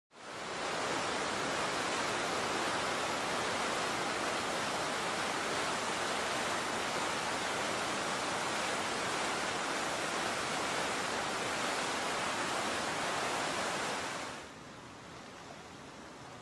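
Steady rush of whitewater pouring over and below a river dam, fading in at the start. About fourteen seconds in it drops to a much quieter, steady rush of flowing river water.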